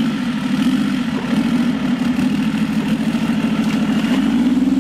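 Engine of a mud-covered Jeep Cherokee 4x4 running under load as it climbs a steep muddy bank, with a steady pitch that rises a little near the end.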